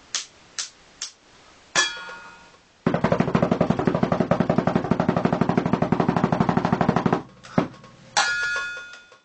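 Snare drum played by hand: a few single hits, then a fast, even drum roll lasting about four seconds, followed by one more hit and a ringing cymbal crash near the end.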